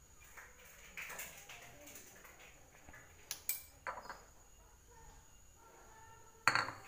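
A few light clinks and knocks of kitchenware being handled around a wok, the loudest a sharp knock near the end. A faint steady high-pitched tone runs underneath.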